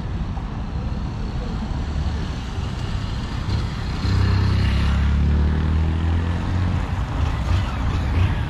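Street traffic with a heavy motor vehicle's engine running close by, swelling to its loudest about halfway through and easing off near the end, over a steady traffic rumble.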